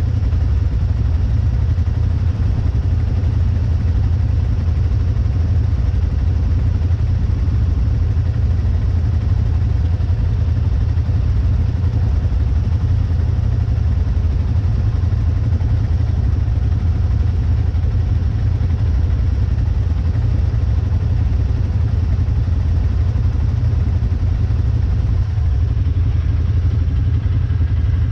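ATV engines idling steadily, a low even running that never changes pitch or level.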